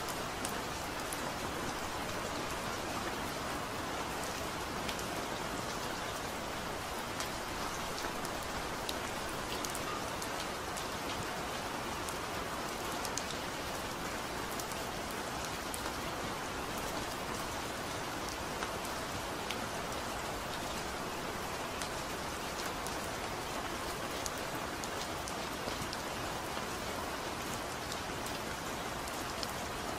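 Steady rain: an even hiss with a fine patter of drop ticks that does not let up.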